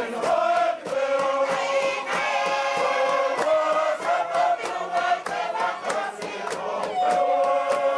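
Tuvaluan fatele: a large group of men and women singing together in held, chant-like lines over a fast, steady beat of struck percussion, the wooden box drum beaten for the dancers.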